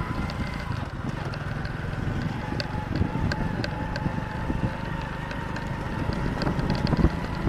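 Honda motorcycle engine running steadily while riding along a sandy dirt track, with small knocks and rattles from the bumps.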